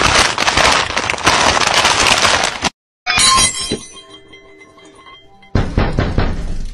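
Glass-breaking sound effect: a loud crash of shattering glass lasting about three seconds that cuts off sharply, followed by a few faint rings and tinkles of shards. A second short clattering burst comes near the end.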